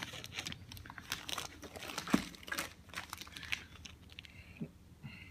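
Packing wrap crinkling and crackling as it is pulled off discs by hand, in many short crackles that thin out after about three and a half seconds.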